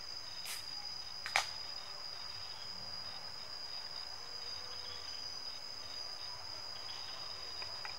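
Insects trilling steadily in the forest, one continuous high-pitched tone. Two sharp clicks in the first second and a half, the second the louder.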